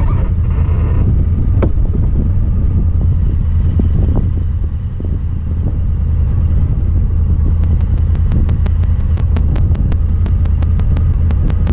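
Honda Talon 1000R side-by-side's parallel-twin engine running steadily while driving, with a brief dip in level about five seconds in. From about two-thirds of the way through, a rapid, regular clicking of about four ticks a second comes from the camera itself.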